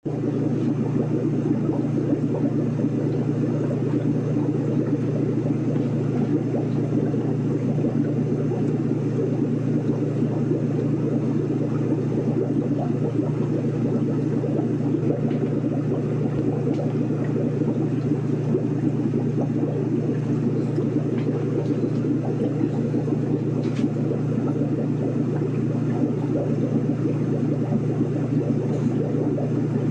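Steady low rumble with a whirring hum, the ambience of an aquarium heard from inside the tank.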